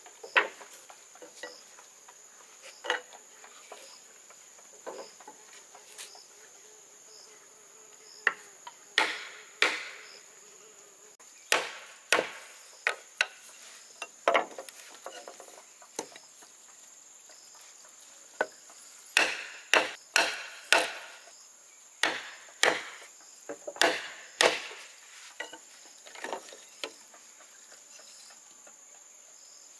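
Repeated blows of a hand tool on wood, irregular and sharp, sparse at first and coming faster through the second half. A steady high insect buzz runs underneath.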